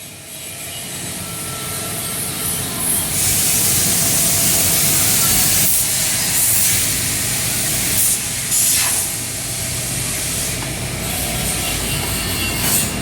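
Laser cutting machine at work: a steady hiss, the sound of assist gas jetting through the cutting head, swelling over the first few seconds and then holding level with a few brief dips.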